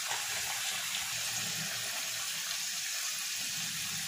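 Nimki (rolled maida dough pieces) deep-frying in oil in a kadhai over a low gas flame: a steady, even sizzle of bubbling oil.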